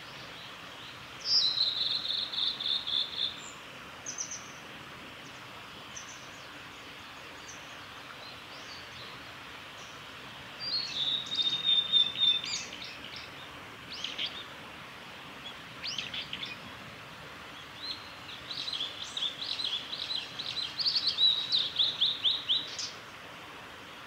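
Male blue-and-white flycatcher singing: a clear high whistled phrase ending in a rapid trill about a second in, another near the middle, and a longer run of quick notes near the end, with a few short single notes in between.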